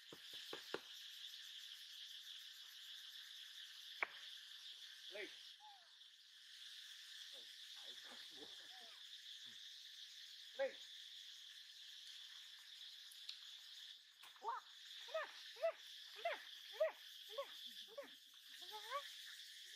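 Steady high insect drone in forest. Near the end comes a run of short falling calls, about two a second, from an animal that cannot be told apart.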